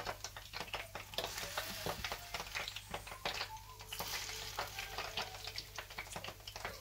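Hot oil sizzling and crackling around gulab jamun dough balls, with a slotted spoon scooping them out of the frying pan and knocking against the pans as they are dropped into sugar syrup.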